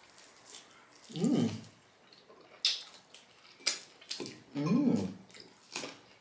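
Eating crispy fried chicken wings close to the microphone: four sharp crunching bites and chewing, with two short hummed "mm" sounds from the eater, the louder one near the end.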